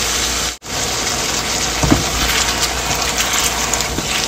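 Hot water poured into a hot wok of frying beef and vegetables, gushing and sizzling. The sound drops out for an instant about half a second in, and scraping strokes of a silicone spatula stirring the pan come through in the second half.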